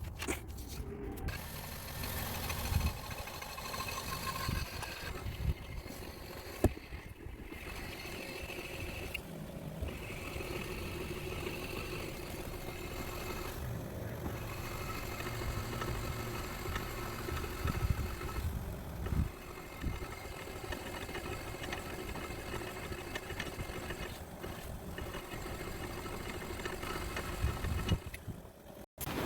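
A 2013 Nissan Cube being driven, steady engine and road noise with a few short knocks; the owner is recording a noise he puts down to the brake rotors after new ceramic pads were fitted.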